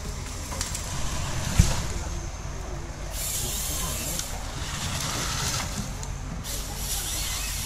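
A felled pine hits the ground with one sharp thud about a second and a half in, over the steady running of the Rottne H21D harvester's John Deere 9.0-litre six-cylinder diesel. From about three seconds in, a hissing rasp sets in as the harvester head feeds and delimbs the stem. It breaks off briefly near the end, then starts again.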